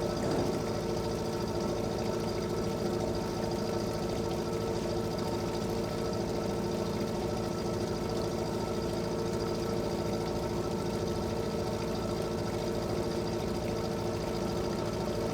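Fishing boat engine running steadily at a constant speed, with a fast, even pulse.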